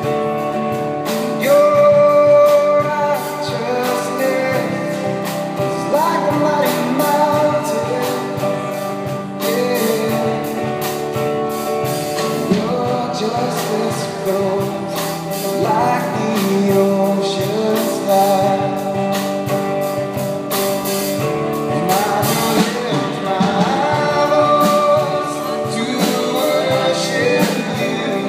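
Live worship band playing a gospel song: a man sings lead over electric guitar and the rest of the band, with a steady beat throughout.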